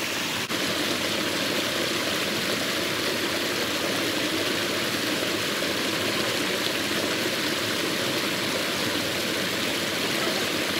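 Muddy floodwater rushing steadily over a small overflow weir and foaming through a net trap, an unbroken wash of white-water noise.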